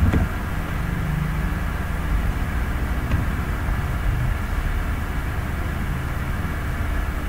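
Steady low background rumble with no clear events, a constant noise floor from the recording's surroundings.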